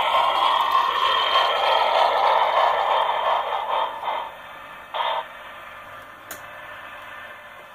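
An HO scale Pennsylvania steam locomotive's onboard sound system plays steam sound through its small speaker: a steady rushing noise that falls away about four seconds in, then one short burst about a second later.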